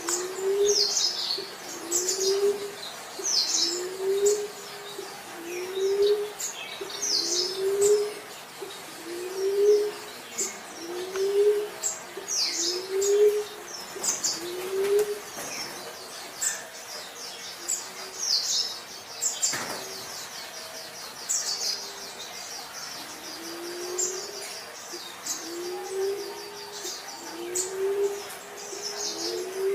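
Emerald dove cooing: a low, rising coo repeated about once a second, with a break of several seconds midway before it resumes. Small birds chirp high above it throughout.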